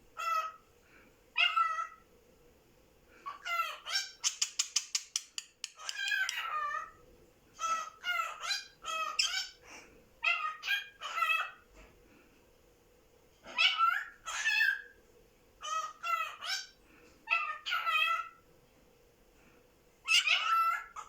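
Cockatiel calling in repeated short bursts of whistled, speech-like phrases, with a quick rattling run of notes about four seconds in.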